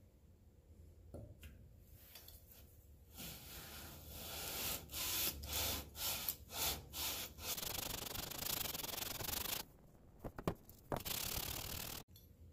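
Aluminium cylinder head of a Kawasaki FH721D engine rubbed back and forth on wet abrasive paper: rasping lapping strokes that grind the warped head face flat. The rubbing starts about three seconds in, breaks off briefly near the end, then picks up again.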